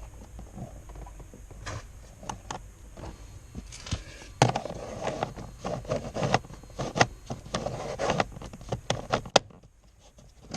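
Handling noise: rustling with many scattered clicks and knocks as a 10 amp fuse is pushed back into the car's fuse box under the dashboard, busier and louder from about four seconds in, then briefly quiet near the end.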